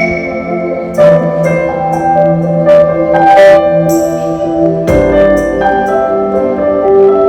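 Background music without singing: held tones with struck, bell-like notes and percussion hits.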